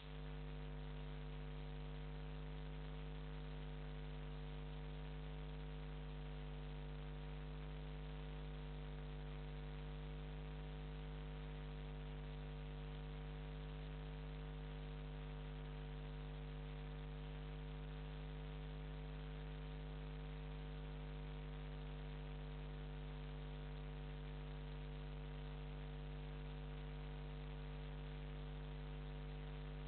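Steady electrical mains hum: a low buzz with a stack of overtones that never changes, likely interference picked up on the webcam's audio line.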